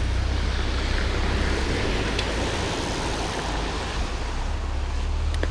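Wind rumbling on an action camera's microphone and the steady rush of a mountain bike rolling along a dirt trail, with a few small clicks and rattles.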